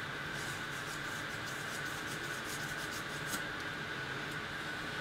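Light, quick rubbing strokes on a glass sheet as the laser-engraved surface is cleaned off, about three strokes a second, stopping with a small tick about two-thirds of the way in. A steady hiss and faint high hum sit underneath.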